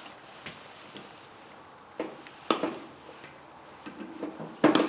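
Metal parts of an electric motor being handled and set down: a few scattered sharp clinks and knocks, the loudest cluster near the end with a short ring.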